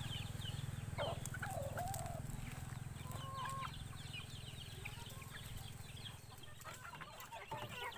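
Young free-range native chickens foraging, with scattered high peeps and a few soft clucks over a steady low hum.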